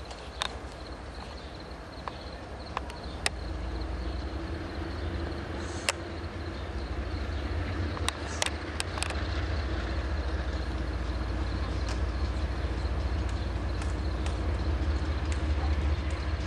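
Diesel freight locomotives approaching, a low rumble that builds steadily louder, with scattered sharp clicks over it.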